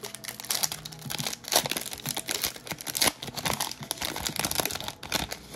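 A plastic trading-card pack wrapper crinkling and tearing as it is ripped open by hand: a dense run of irregular crackles.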